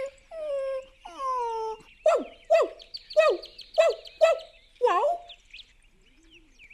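Cartoon dog character's voice: two drawn-out whines falling in pitch, then about six short barks in a row, before it goes quiet near the end.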